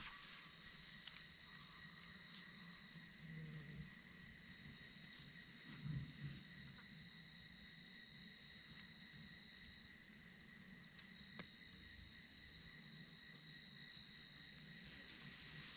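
Crickets trilling faintly at night: a steady high-pitched chirring that runs in long stretches of several seconds, broken by short pauses.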